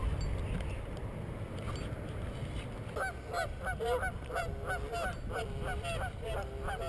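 Geese honking in a quick series of short calls, about two or three a second, starting about three seconds in, over a low steady rumble.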